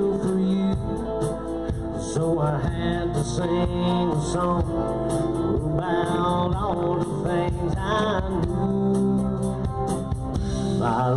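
Live country band playing, a guitar carrying a bending melody line over the band.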